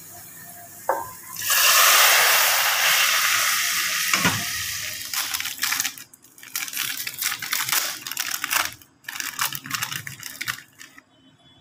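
A loud hiss from the pan and pot on the gas stove starts suddenly and fades over a few seconds, with a single clunk. Then a crinkly plastic snack wrapper is torn open and handled, its crackling stopping just before the end.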